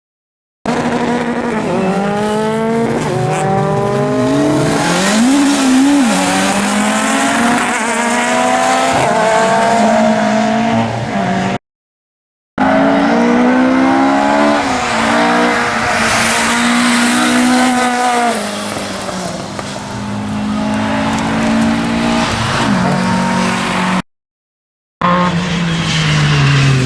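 Rally car engines revving hard, the pitch climbing and dropping back repeatedly through gear changes, in three separate clips cut apart by short silences near the start, about twelve seconds in and about twenty-four seconds in.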